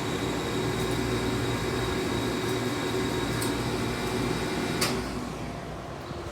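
Hydraulic elevator pump motor running with a steady hum and a thin high whine while the car travels up. About five seconds in there is a sharp click and the motor's hum falls away, as the pump stops at the end of the run.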